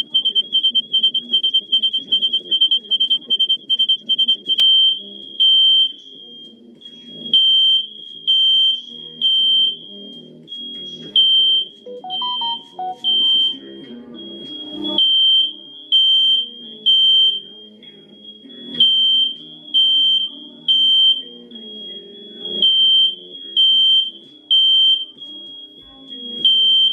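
Fire alarm sounding: a high-pitched electronic beep that repeats rapidly at first, then changes about six seconds in to slower, longer beeps that keep going.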